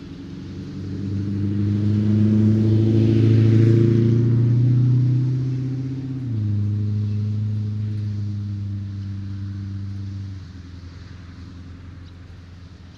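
A motor vehicle passing on the road: its engine hum and tyre noise build up, peak, and the engine tone drops in pitch about six seconds in, then fades away after about ten seconds.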